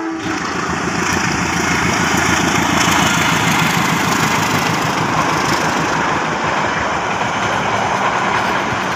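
A locomotive-hauled passenger train passing close by, with a steady rumble and clatter of wheels on the rails as the coaches go past. It builds over the first few seconds and eases off slightly toward the end. The tail of the locomotive's horn cuts off right at the start.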